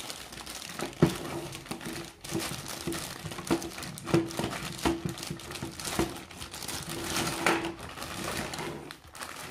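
Clear plastic bag crinkling and rustling as a tripod is worked out of it by hand, with a few sharp clicks and knocks among the rustling.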